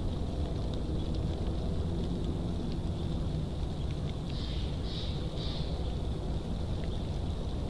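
Steady low wind rumble on the nest-cam microphone, with three short, high bird calls in quick succession about four to five and a half seconds in.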